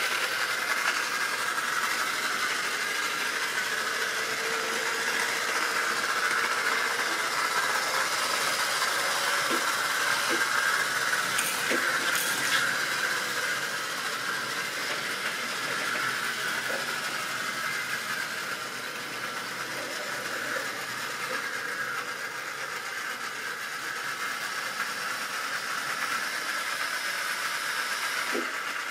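A model railway train running on sectional track: the steady whine of a small electric locomotive motor, with the wagons' wheels rattling over the rail joints. There are a few sharp clicks about ten to twelve seconds in, and the sound eases off somewhat in the second half.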